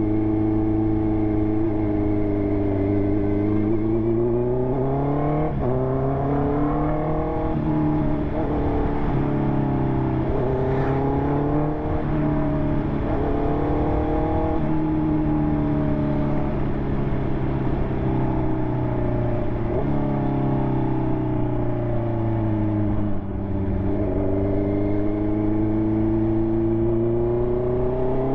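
2020 Honda CB650R's inline-four engine through an aftermarket SC Project exhaust, under way on the road. The engine note rises and falls with the throttle, with several sudden jumps in pitch, at about five and a half seconds, fourteen seconds, twenty seconds and twenty-three seconds.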